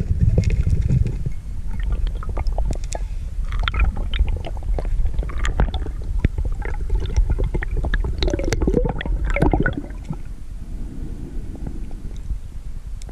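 Underwater recording: a steady low rumble of water moving around the camera, with many small clicks, knocks and some bubbling as the diver hauls in the spear line and handles the speared fish, quieter near the end.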